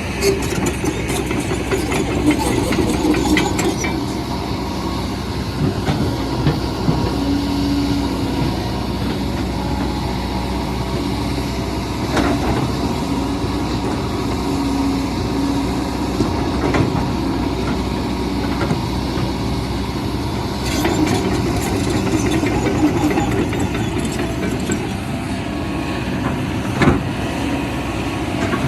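Excavator's diesel engine running steadily under load, with scattered metallic clanks and knocks.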